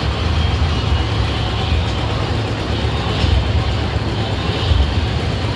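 Steady rumble of a fairground kiddie roller coaster train, its cars running along a steel tubular track.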